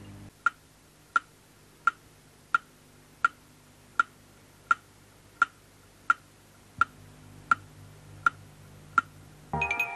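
Ticking of a clock, a sharp tick about every 0.7 seconds, thirteen in all, that stops as music with bell-like notes comes in near the end.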